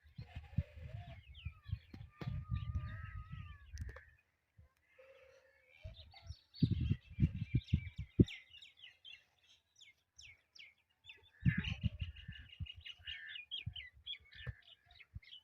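Pet green parrot chirping: a run of quick, short chirps and squawks with a few wavering whistles, thickest about seven seconds in and again from about eleven seconds, over low rumbling bumps on the microphone.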